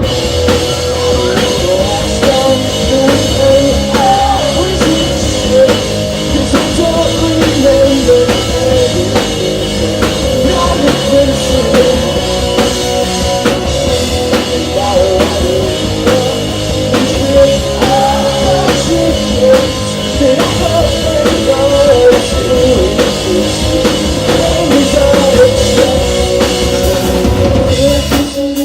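Rock band playing live at full volume, a drum kit pounding out the beat under sustained guitar and bass.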